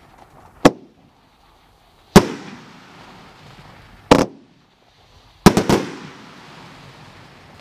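Cutting Edge 'Patriotism' consumer firework cake firing shots, each a sharp bang that echoes away. There is a bang under a second in, another about two seconds in, a double bang around four seconds, then a quick volley of three about five and a half seconds in.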